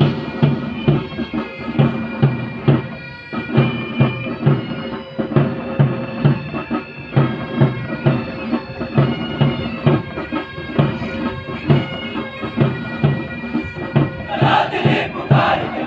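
Military pipe band playing a march: bagpipes with their held drones over a regular drumbeat of about two beats a second. The sound swells louder near the end.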